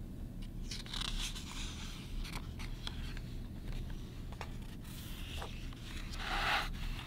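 A picture-book page being turned by hand: soft paper rustling and sliding, with the loudest rustle near the end as the page comes over.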